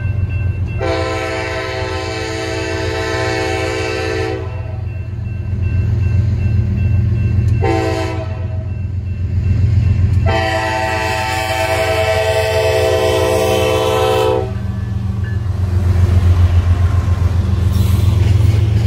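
Canadian Pacific GE ES44AC locomotive's air horn sounding a long blast, a short blast and a long blast for the grade crossing. Under the horn there is a steady low rumble of the train that grows louder near the end as the locomotive reaches the crossing.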